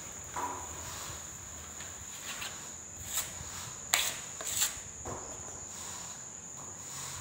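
Putty knife scraping wall putty along a door-frame edge and clicking against the hand plate as it is reloaded, with a few sharp clicks, the loudest about four seconds in. A steady high-pitched whine runs underneath.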